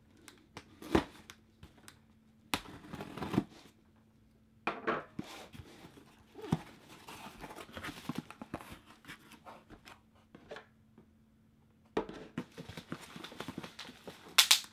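Cardboard shipping box being pulled open by hand: flaps bending back and cardboard tearing and rustling in irregular bursts, with a few sharp knocks near the end.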